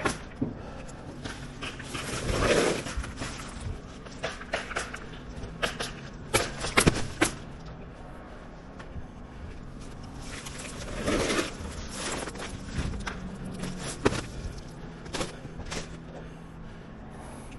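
Irregular knocks, clicks and scraping from roofing work, with two louder rushes of noise about two and eleven seconds in, over a low steady hum.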